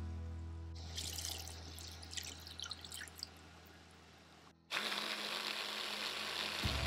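Cream pouring and dripping into a plastic chopper bowl over roasted red peppers. About five seconds in, an electric mini food chopper starts suddenly and runs steadily, blending the peppers and cream into a sauce, the loudest sound. Soft background music with a low steady note fades early and comes back near the end.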